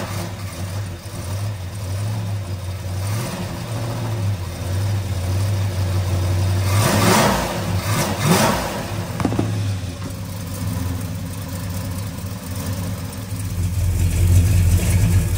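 Classic Ford big-block V8 running just after starting, a steady idle with two brief revs about halfway through. The engine grows louder near the end.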